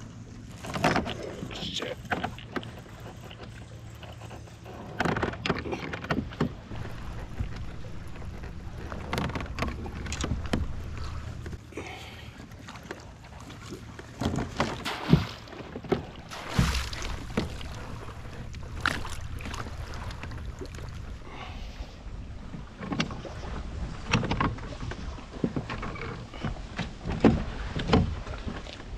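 Kayak on the water: irregular knocks and splashes against the hull every few seconds, over a low steady hum.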